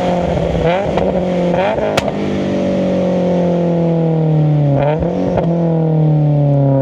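Subaru BRZ's FA20 flat-four, fitted with SARD individual throttle bodies, running under way: the revs dip and pick up quickly twice early on and again about five seconds in, sinking slowly in between. A sharp click about two seconds in.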